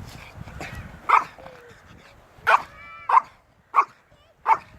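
A dog barking: five short, sharp barks, the last four coming quickly one after another.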